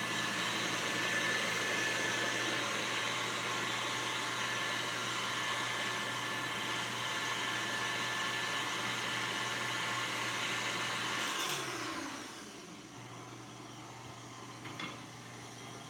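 KitchenAid Artisan stand mixer running at speed, its beater whipping coconut cream in a glass bowl. About twelve seconds in, the motor winds down and the sound drops much quieter.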